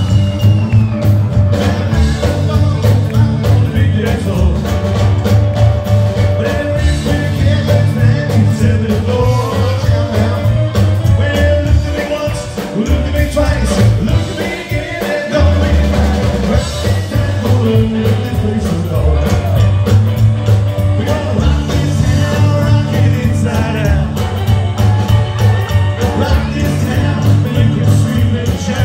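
Live rockabilly band playing: upright double bass, drum kit and electric guitar, with the bassist singing lead. The band drops briefly quieter about twelve to fifteen seconds in, then comes back in full.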